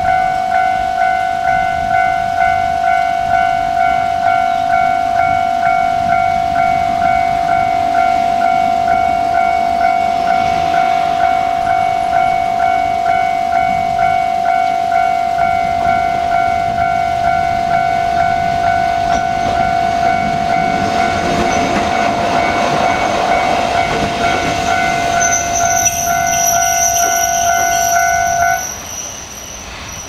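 Japanese level-crossing alarm ringing a fast, steady run of electronic dings while a Shimabara Railway diesel railcar passes over the crossing. The train is loudest a little after twenty seconds in, and a high wheel squeal joins near the end. The alarm cuts off a second or two before the end as the crossing clears.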